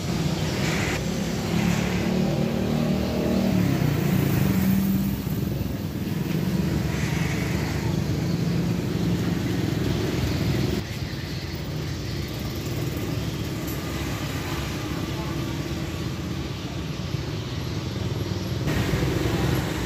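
Motor vehicle traffic noise with an engine running, louder through the first half; the sound drops abruptly about eleven seconds in.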